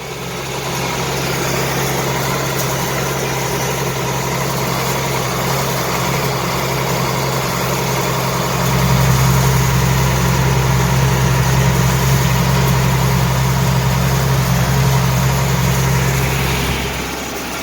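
Tractor engine running steadily under load while pulling a hay rake. It gets louder and deeper about eight and a half seconds in, then fades near the end.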